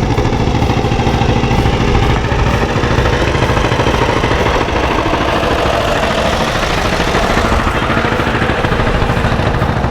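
An engine running steadily at a constant pitch, starting abruptly and holding an even, loud level.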